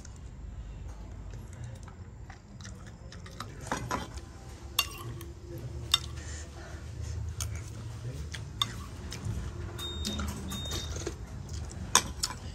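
A spoon clinking and scraping against a ceramic plate as food and broth are scooped up, in a few scattered sharp clicks.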